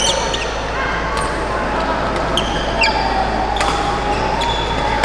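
Badminton doubles rally: sharp racket strikes on the shuttlecock and short squeaks of court shoes on the hall floor, over steady crowd chatter.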